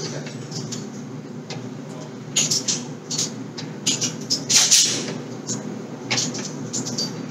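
Shooting range background: a few short, sharp cracks and clicks at irregular intervals, the strongest about two-thirds of the way through, over a steady low hum.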